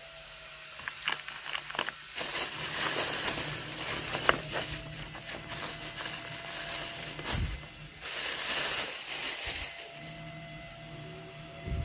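Close crinkling and crackling as food and its wrapping are handled, in two long stretches with scattered clicks.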